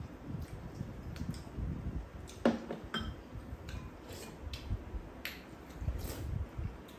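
Metal spoons clinking and scraping against ceramic and stainless-steel bowls as two people eat, a handful of scattered light clinks.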